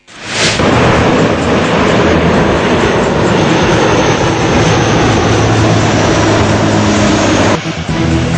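A short whoosh, then the loud, steady noise of a four-engine turboprop flying boat at high power, its engines running under the rushing spray of a takeoff run on water. The noise drops suddenly about a second before the end.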